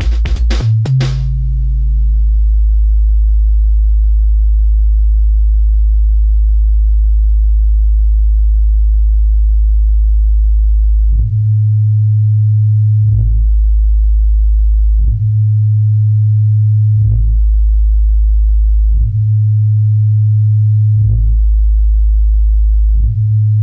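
Deep bass test tones: after a few drum-machine hits, a very low steady tone is held for about ten seconds. It then alternates with a higher low tone, each held about two seconds.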